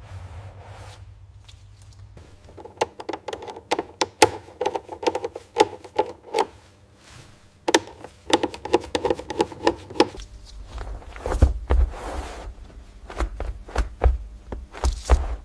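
A quick, uneven series of sharp clicks and taps, many with a short ringing tone, followed about ten seconds in by a run of dull low thumps.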